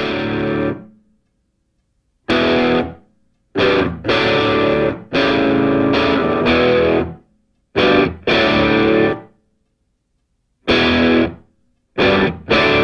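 Music: distorted electric guitar chords played in stop-start bursts, each cut off sharply by a silent gap.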